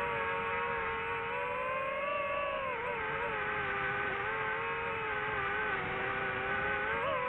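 DJI FPV quadcopter's motors and propellers whining in flight: a steady buzzing tone that rises a little about two seconds in and dips briefly just before three seconds, shifting slightly with throttle.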